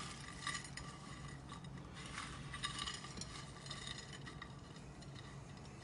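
Faint, scattered scraping and rustling of hands rolling balls of dough in loose oats on a ceramic plate, over a low steady hum.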